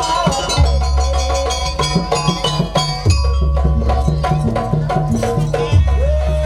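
Live Banyuwangi jaranan percussion ensemble music: kendang barrel drums beat a quick rhythm over deep sustained low notes that return about every two and a half seconds, with a pitched melody line above.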